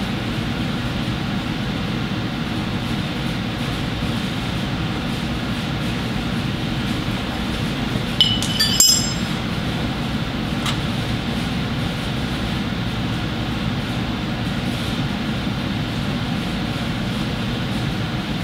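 A short cluster of ringing metal clinks a little under halfway through, and one sharp click about two seconds later, as a hand tool works the nuts on a heavy truck starter motor's cable terminals. A steady low background noise runs under them.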